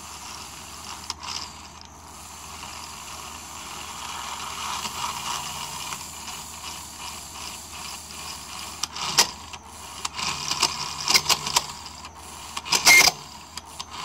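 Energized electronic throttle body from a 1995 Mercedes S320 running on the bench: a steady mechanical grating from its actuator motor and gears as the throttle lever is held by hand, with a few sharp, louder scrapes in the second half. The screeching is a symptom of the unit's failing internal clutch coil.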